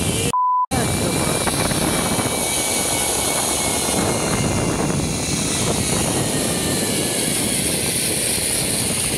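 Zipline trolley running along its steel cable with a steady rush of wind over the microphone and a faint high whine that slowly drops in pitch. A short electronic beep cuts in about half a second in.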